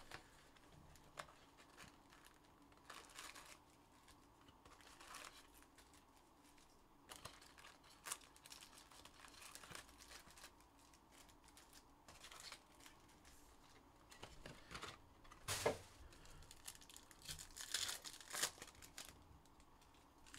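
Faint tearing and crinkling of trading-card box packaging being opened, in short scattered bursts, with one sharper knock about three-quarters of the way through.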